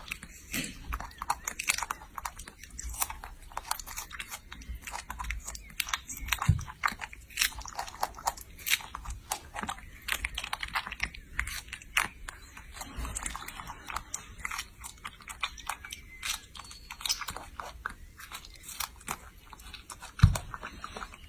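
Steady crunchy chewing, many small crisp crunches one after another, with a dull thump about six seconds in and a louder one near the end.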